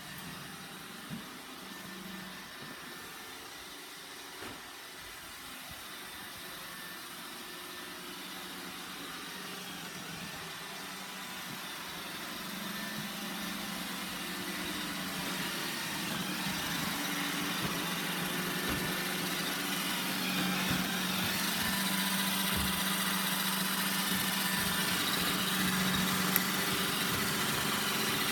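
Roomba 960 robot vacuum running: a steady motor hum that grows gradually louder.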